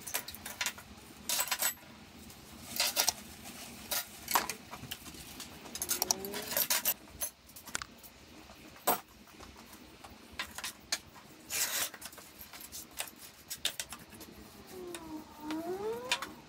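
Metal tools and offcuts clinking and clattering on a workbench as it is cleared, in a string of separate knocks and jangles.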